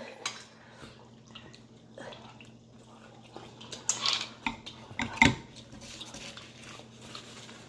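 Cutlery and plates clinking and knocking quietly during a meal, with a couple of sharper clinks about four and five seconds in, over a faint steady hum.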